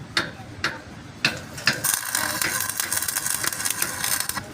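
Four sharp metal taps about half a second apart, then a dense, steady crackle of metalwork lasting about two and a half seconds before it stops.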